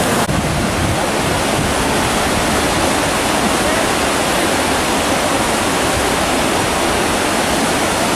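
Swift river rapids rushing steadily and loudly, a continuous wash of whitewater noise.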